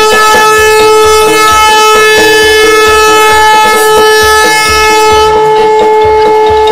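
Handheld compressed-gas air horn held down in one long, loud, steady blast.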